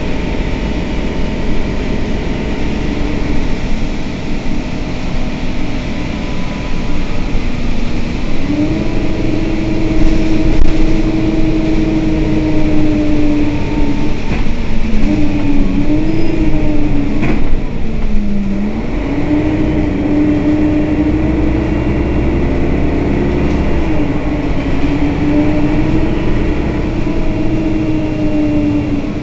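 Mercedes-Benz Citaro city bus engine idling while the bus stands still, heard from behind the rear engine bay. A steady whine wavers up and down in pitch over the engine noise, and a single sharp click comes about halfway through.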